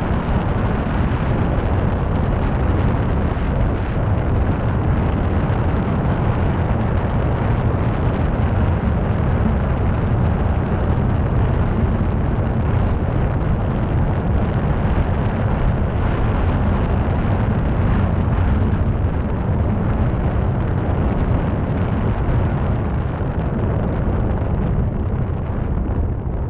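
Steady wind rumble on the microphone of a camera mounted on the roof of a moving car, mixed with the car's road noise.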